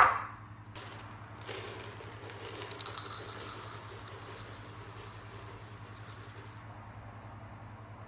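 A sharp knock, then a few seconds of fine, high-pitched rattling, like small hard objects being shaken or poured, which stops about two-thirds of the way through.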